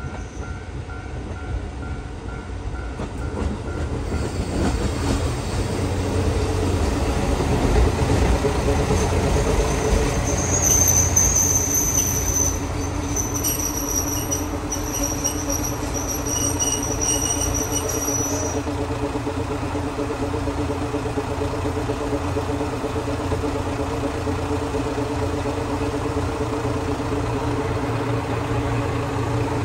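JR Hokkaido KiHa 54 two-car diesel railcar pulling into a station, its diesel engine and wheels on the rails growing louder as it comes alongside. About ten seconds in a high squeal starts while it slows and stops after about eight seconds, leaving the diesel engine running steadily.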